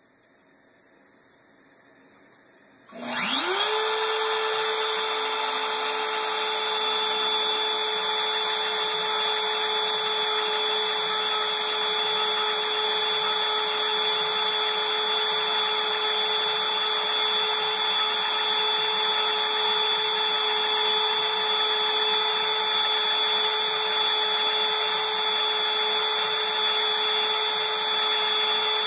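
Bosch Colt router, used as the CNC mill's spindle, switches on about three seconds in. Its whine rises quickly to a steady high pitch and it then runs at constant speed.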